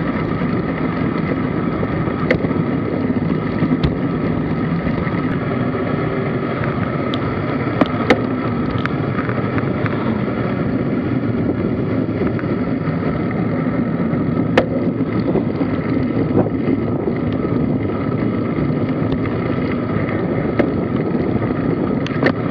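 Steady wind rush on the microphone of a camera riding on a road bike at about 30 km/h, with a few sharp clicks and knocks.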